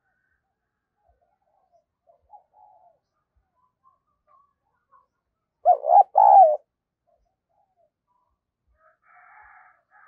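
Spotted dove cooing: one loud two-note coo about six seconds in. Faint calls of other birds come and go, more of them near the end.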